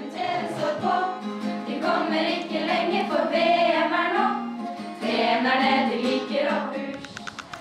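A group of teenage girls singing a song together, accompanied by an acoustic guitar. The singing breaks off near the end.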